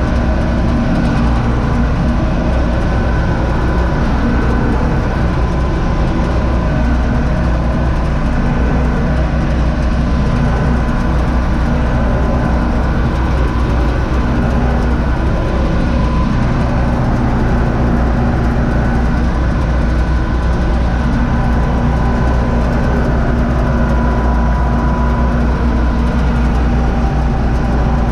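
A U650 tractor's four-cylinder diesel engine running at a steady speed under way, heard from inside the cab: an even, unbroken hum.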